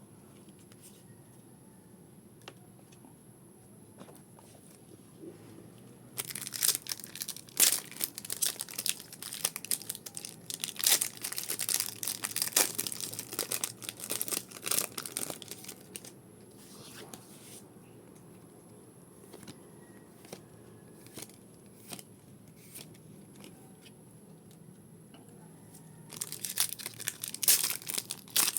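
Foil booster pack wrappers being torn open and crinkled, in a spell of loud tearing and crackling from about six seconds in that lasts about ten seconds, and again near the end. In between it is quiet apart from a few faint clicks.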